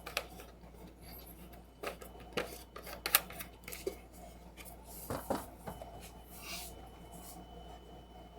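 Dishes and utensils being handled: a few scattered clinks and knocks, the sharpest about three seconds in.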